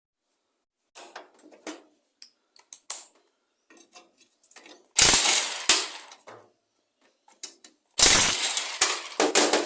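Metal exhaust parts of a lawn mower engine clattering as they are taken off and handled: light clicks and taps, then two loud metallic clatters about five and eight seconds in, with more clatter near the end.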